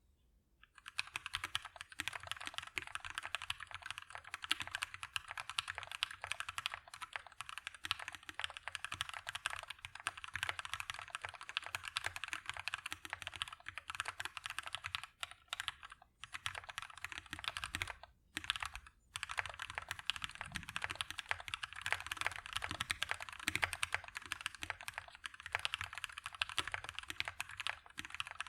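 Rapid, continuous typing on a mechanical keyboard with a brass plate, lubed and filmed Durock Lavender switches and Akko ASA-profile PBT keycaps: a dense run of keystroke clacks, with a couple of short pauses about two-thirds of the way through.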